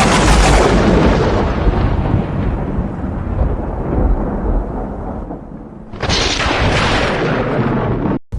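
Two thunderclaps, each a sudden crack followed by a long rolling rumble. The first strikes at the start and rumbles away over several seconds; the second breaks about six seconds in.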